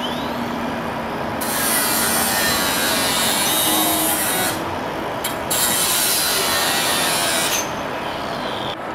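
Hand-held power tool cutting through the crushed, foam-insulated roof panel of a truck trailer, in two long runs of a harsh, hissing cut with a short pause between them.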